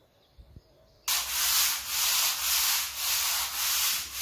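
Hand sanding or scraping of a plastered wall: loud rasping strokes, about two a second, that start abruptly about a second in. This is preparation of the old paintwork for repainting.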